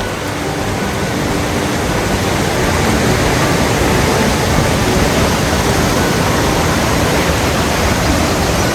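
Steady rush of fast-flowing river water, getting a little louder after about two seconds.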